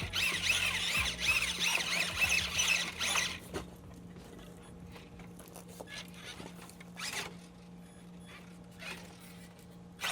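Small electric RC car motor and drivetrain whining in quick rising-and-falling pulses, several a second, as the throttle is blipped; the pulses stop about three seconds in, leaving only a few brief scrapes and a steady low hum.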